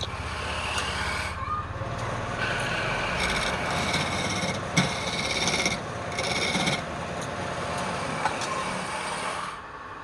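Wood being scraped by hand with a rasp or abrasive: a run of rubbing strokes, each about a second long, with short breaks between them.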